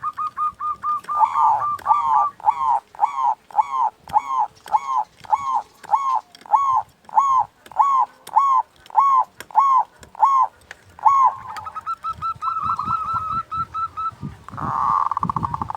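Zebra dove (perkutut) singing: a long run of evenly repeated arched cooing notes, about two a second. These give way to faster short notes and a rolling trill near the end.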